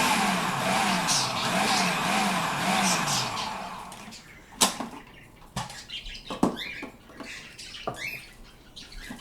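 Food processor motor running while chopping broccoli, its pitch wavering up and down as the pieces tumble, then stopping about three and a half seconds in. A few sharp clicks and knocks follow.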